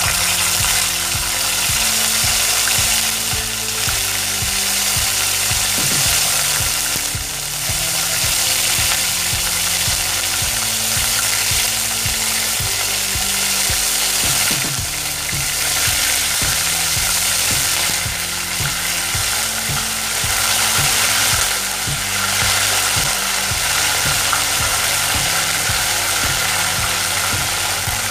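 Ginger-garlic paste sizzling and crackling in hot oil in a karahi, a steady spattering hiss as the paste is fried off to lose its raw smell.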